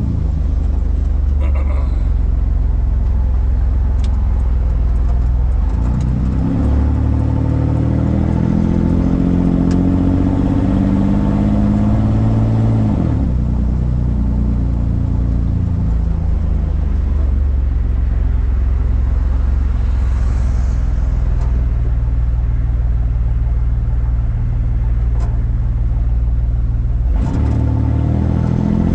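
Willys jeep's engine pulling while driving: the revs climb, fall sharply about halfway through, hold steady, then climb again near the end.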